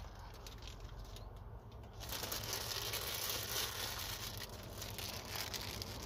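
Clear plastic bag crinkling and rustling as it is handled, with faint ticks at first, becoming a dense, louder crinkle from about two seconds in. A low steady hum runs underneath.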